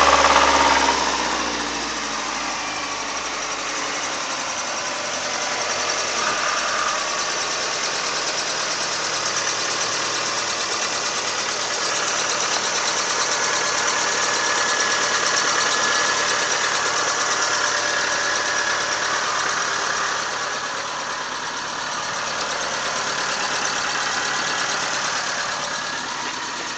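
2002 Mazda Protege5's four-cylinder engine running, easing down from higher revs in the first couple of seconds and then running steadily near idle with small swells. A strange rattling comes from the engine, the sound the owner says appears whenever gas is given.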